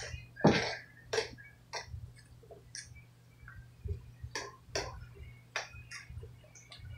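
Kitchen utensils clicking and knocking at the stove, about a dozen sharp light taps at irregular intervals, over a low steady hum.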